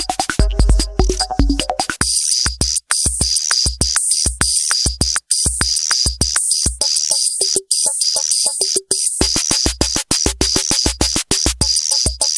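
Roland TR-8S drum machine playing its CR-78-style factory preset beats: a kick-driven pattern with short pitched tones switches about two seconds in to the CR-78 Latin pattern, a steady kick under fast, bright high-pitched percussion with occasional short pitched hits.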